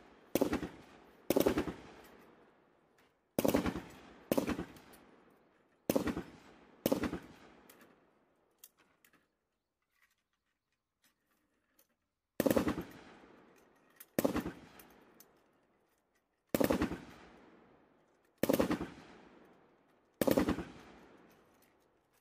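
Short bursts of 7.62 mm M240B machine-gun fire, one every one to two seconds, each a few rapid shots trailing off in an echo. There is a pause of about four seconds midway before the bursts resume.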